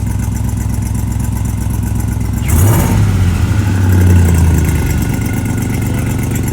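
Ram TRX's V8 idling, then revved once about two and a half seconds in with a burst of hiss, held for a couple of seconds and dropping back to idle. The engine is breathing through a wastegate stuck open, which the owners suspect is jammed by debris.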